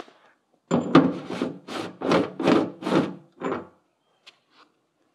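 Threaded fuel tank strainer of a Mercedes-Benz 560SL being unscrewed by hand from the tank: a quick run of about eight scraping strokes, roughly three a second, with a sharp click near the start, then a couple of faint ticks.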